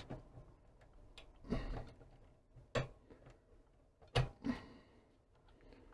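Hand handling plugs and wiring on the chassis of a Microvitec Cub CRT monitor. A short scraping rustle comes about one and a half seconds in, then two sharp clicks, one near three seconds and one just after four, the second followed by a brief scrape.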